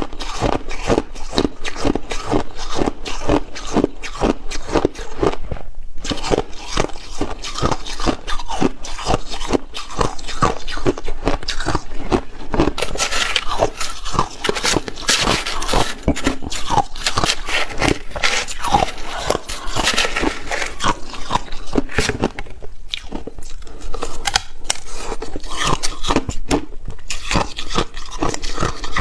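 A person biting and chewing ice close to the microphone: rapid crunches and scrapes one after another, packed densest and sharpest in the middle.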